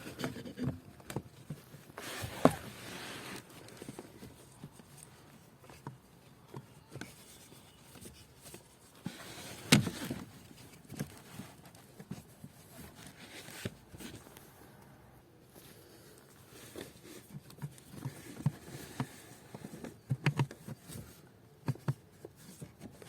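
A WIX WP9110 cabin air filter being worked into its housing in a Ford Fiesta's footwell: rubbing and scraping of the filter against plastic, with scattered small knocks and clicks and two sharper clicks.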